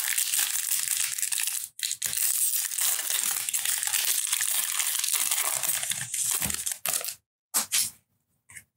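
The foil wrapper of a 2018 Stadium Club baseball card pack being torn open and crinkled by hand: a dense crackling that stops about seven seconds in, followed by a few brief handling sounds.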